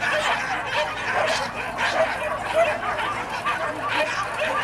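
Several dogs barking and yipping in quick, repeated calls over crowd hubbub.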